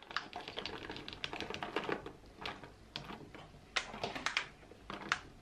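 Blueberries tipped from a plastic tub into a glass bowl of pancake batter: a scatter of light, irregular clicks and taps as berries and tub knock against plastic and glass.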